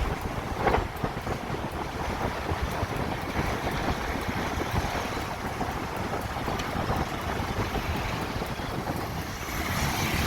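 Wind buffeting the microphone over a steady low rumble, with a brief louder gust about a second in.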